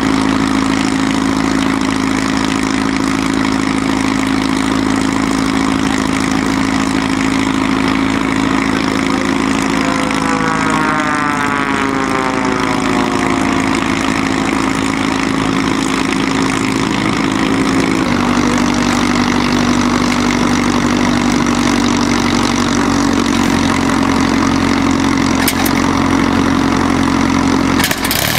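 A piston aircraft engine idling steadily, its note stepping down slightly about two-thirds of the way through. Around ten to thirteen seconds in, a second engine sound sweeps down in pitch as it passes.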